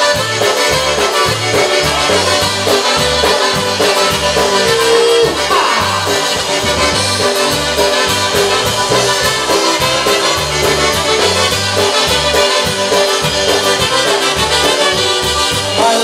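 Live polka band playing an instrumental passage: two trumpets lead the tune over accordion, bass guitar and drums, with a steady, even bass pulse.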